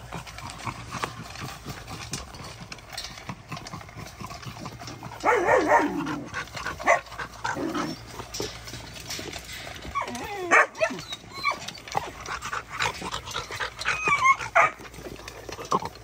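Puppies eating dry kibble from metal bowls: steady crunching and clicking of food and bowls, broken by short dog whines and whimpers, the loudest a falling whine about five seconds in, more around ten and fourteen seconds.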